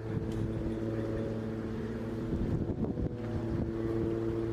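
Steady low engine or machine hum with several held tones that do not change in pitch.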